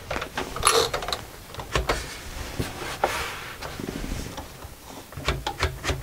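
The platen of a 1949 Smith-Corona Clipper portable typewriter being rolled by hand to bring up the typed page, its ratchet and carriage giving scattered, irregular clicks.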